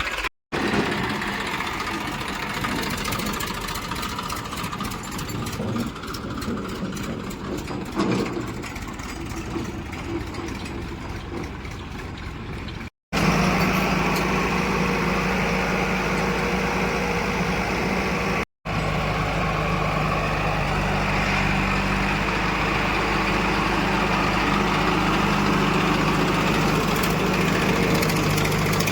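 Diesel engine of heavy farm or construction machinery running steadily, broken by brief silent gaps. A rougher, noisier running sound gives way about 13 seconds in to a steady, deeper engine hum.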